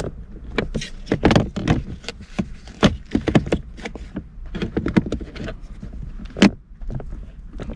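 Plastic shifter bezel being pressed into a car's centre console: a string of irregular plastic clicks and taps, the sharpest snap about six and a half seconds in.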